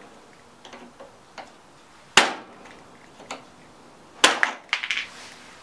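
Needle-nose pliers being tapped, likely with a hammer, to drive a C-clip off a lawn mower's drive axle. There are light metallic ticks, one sharp tap about two seconds in and another sharp tap just past four seconds with a few small clicks after it.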